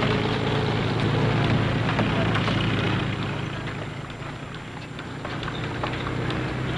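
Truck engine running steadily through the hiss and crackle of an old film soundtrack. It drops away around the middle and comes back up near the end.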